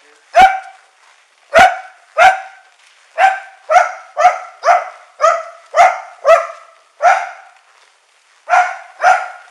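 A dog barking repeatedly at strangers in the house: about a dozen short, sharp barks in quick runs, with a pause of about a second near the end before two more.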